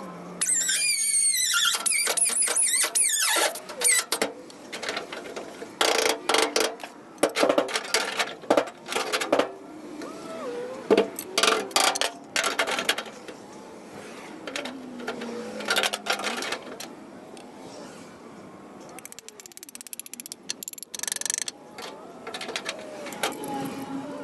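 Sheet-metal work on a steel body panel: a brief high squeal from a tool near the start, then irregular runs of sharp hammer blows on the steel, with a shorter burst of blows near the end.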